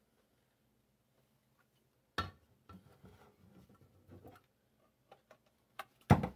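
Clicks and rattles of a black plastic manual smooth-edge can opener being handled and fitted onto the top of a tin can: a sharp click about two seconds in, small scattered clicks after it, and a louder knock near the end as it seats on the can.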